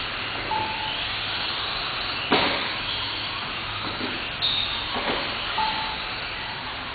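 Small 1/18-scale radio-controlled race cars running on the track, a steady whirring hiss of motors and tyres. A sharp knock comes about two and a half seconds in and a softer one about five seconds in.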